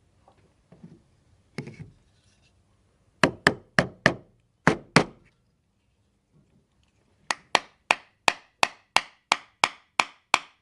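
Hammer tapping on wood, knocking a mortise-and-tenon joint of a hand-made hexagonal wooden box together in a trial fit. Six sharp knocks come in two bunches, then after a pause a steady run of knocks at about three a second.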